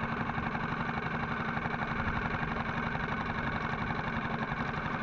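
Parsun F6 four-stroke outboard motor running steadily, pushing an inflatable boat along.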